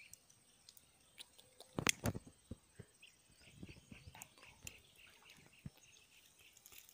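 Faint handling knocks and rustles close to the microphone, the loudest a knock about two seconds in, over faint, repeated short high chirps.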